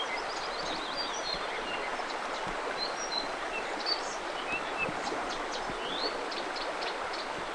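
Steady rushing of flowing river water, with many short, high bird chirps scattered through it.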